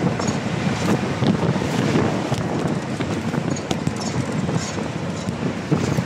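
Wind buffeting the microphone over the steady rumble of an open vehicle in motion.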